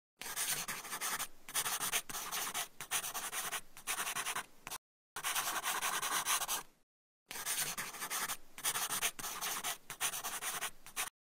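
Pen-on-paper writing sound: scratchy strokes in quick succession, broken by two short pauses about five and seven seconds in.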